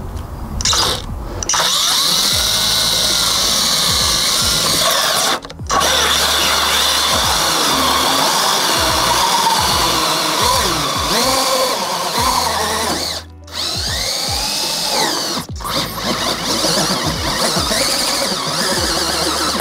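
Cordless drill spinning a hole saw as it cuts into a motorhome's side wall, running steadily and stopping briefly three times.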